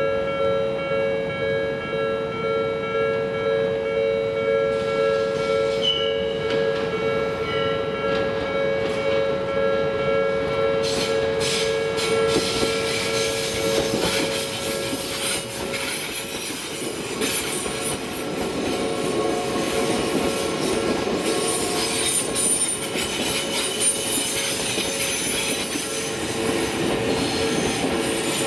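Railway level-crossing alarm ringing its steady two-tone warning while an Odakyu electric commuter train runs through the crossing. The wheel-on-rail noise builds from about five seconds in and is loudest about halfway, with a high squeal from the wheels. It then carries on as steady running noise under the alarm.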